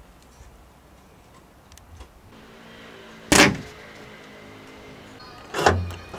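Two loud clunks on the Honda N-VAN's rear gate about two seconds apart, with a faint steady hum between them.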